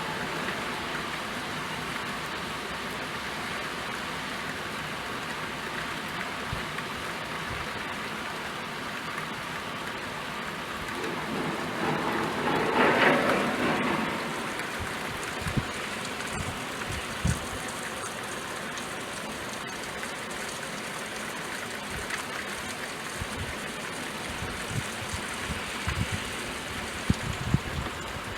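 Steady rain falling, with a louder rushing swell about halfway through and scattered low knocks near the end.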